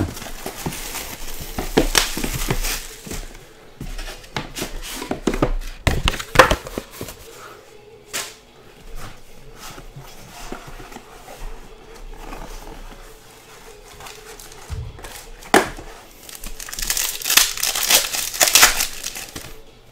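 Crinkling and tearing of trading-card packaging as a box of baseball cards is unwrapped and handled. Near the end a card pack's wrapper is torn open and crinkles loudly.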